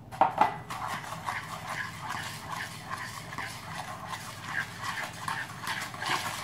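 A metal fork beating sugar into beaten eggs in a plastic mixing bowl, with two sharp knocks at the very start. After that come rhythmic scraping strokes, about two to three a second.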